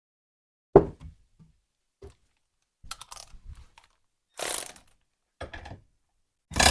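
Metal parts of a machinist's vise being worked as its lead screw is threaded in and drawn up: a sharp knock, small clicks, then short bursts of ratcheting, scraping metal, louder near the end.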